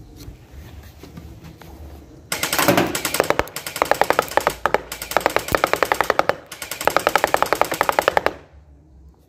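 Hydrogel gel blaster styled as a Halo assault rifle, driven by a Viper gearbox motor, firing full-auto in about three long bursts of rapid, evenly spaced shots, starting about two seconds in. The battery is not fully charged.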